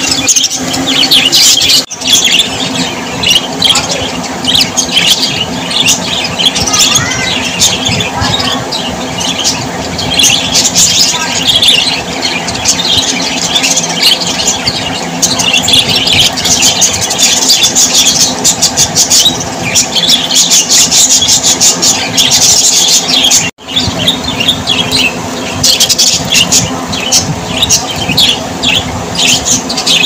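A flock of budgerigars chattering with dense, rapid, high chirps and warbles, over a steady low hum. The sound drops out briefly twice, about two seconds in and again past the twenty-second mark.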